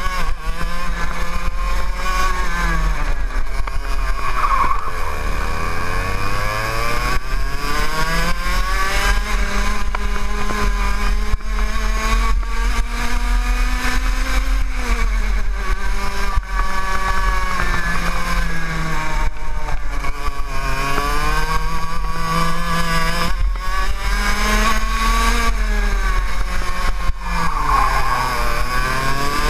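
TAG racing kart's 125cc two-stroke engine heard from on board, revs climbing in a long rising whine along the straights and dropping sharply into the corners, about four seconds in and again near the end.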